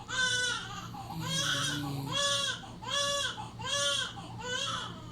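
A run of six short, high, whining cries in quick succession, each rising and then falling in pitch, about one every 0.8 seconds.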